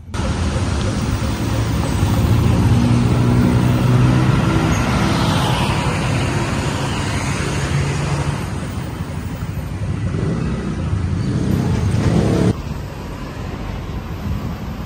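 City road traffic, with motor vehicle engines running and passing close by and an engine note that rises and falls. About four-fifths of the way through it drops suddenly to quieter traffic.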